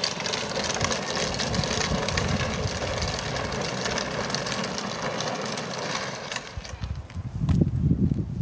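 Child's electric ride-on ATV driving along a paved path: a steady grinding whir of its motor and wheels that dies down about six and a half seconds in. A few loud low thumps follow near the end.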